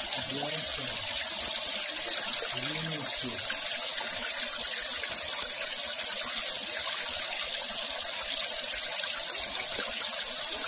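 Steady hiss of water splashing onto the surface of a koi pond.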